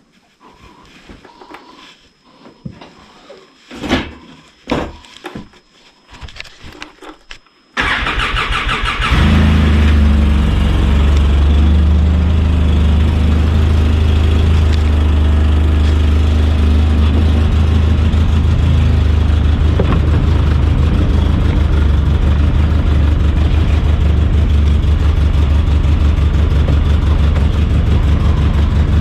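Scattered knocks and clicks, then, about eight seconds in, an ATV engine is cranked by its electric starter for about a second, catches, and settles into a steady idle.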